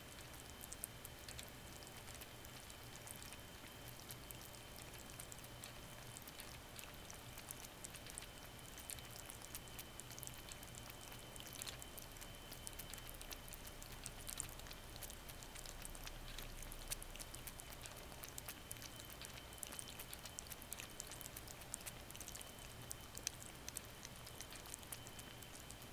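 American Shorthair kitten licking water from the metal tip of a cage-mounted water-bottle nozzle: a fast, irregular run of faint wet clicks and ticks.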